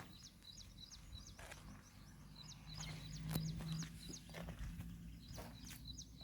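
A small bird chirping over and over, many short high notes in quick runs. A faint low hum comes in through the middle.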